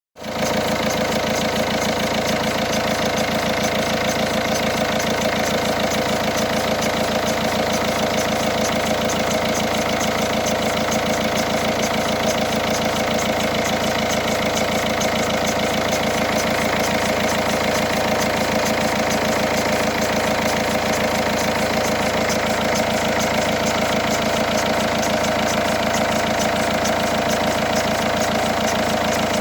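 Peugeot 308 SW's 1.6 HDi four-cylinder turbodiesel engine idling cold, with a steady, fast, even rattle over the running. This is a strange noise heard only with the engine cold, which the owner suspects comes from a belt or a bearing.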